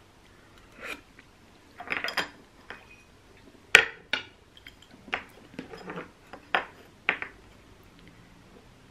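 Metal spoon clinking and scraping against a stainless-steel pot while eating from it: a string of sharp clinks, the loudest about four seconds in.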